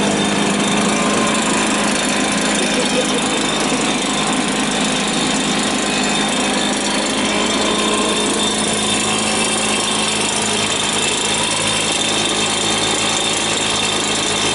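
Blower engine running steadily as the canoe's air-boat thrust unit, a constant, rough motor noise with a steady hum.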